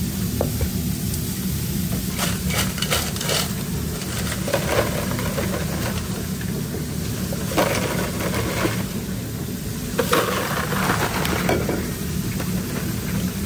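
Cooked fries tipped from a stainless steel bowl into cardboard fry boxes: light rattling and paper rustling in several short clusters, over a steady low hum of kitchen equipment.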